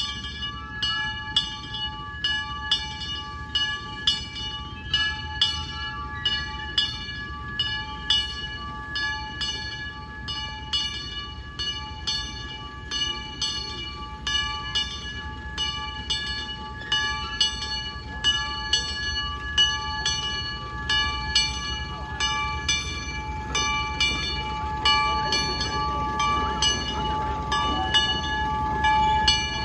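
Small steam locomotive chuffing slowly and evenly, about one and a half exhaust beats a second, as it pulls a short passenger train. A steady whistling tone of several notes runs under the chuffs, with a low rumble beneath.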